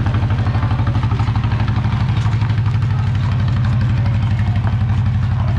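An engine running steadily at idle, a fast, even low throb.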